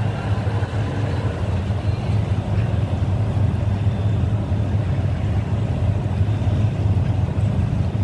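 A boat's engine running with a steady low drone, mixed with the rush of wind and water.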